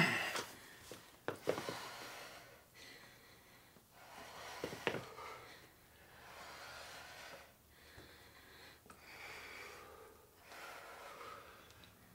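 Faint, rhythmic heavy breathing of people exerting themselves in a workout, breaths in and out about once a second, with a few faint clicks in the first couple of seconds.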